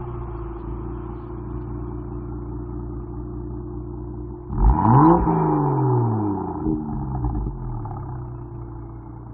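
Volvo Polestar's engine idling steadily, then revved once sharply about halfway through, the revs rising quickly and falling back, with a smaller blip just after before settling back to idle.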